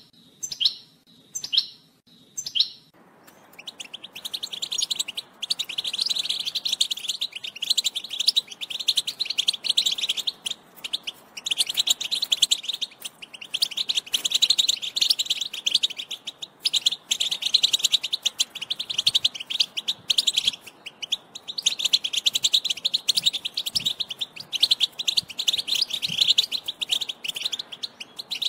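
European goldfinch singing: a few separate short falling calls, then from about three seconds in a rapid, continuous twittering song that comes in long bursts with brief breaks.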